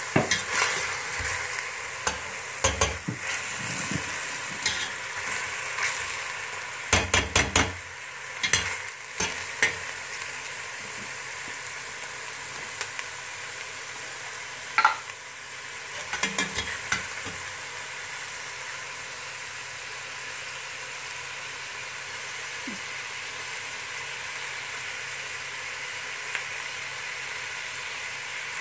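Chicken pieces sizzling steadily as they fry in oil in a stainless steel pot. A metal slotted spatula scrapes and clinks against the pot as the pieces are stirred, in bursts through the first half, then only the sizzle goes on.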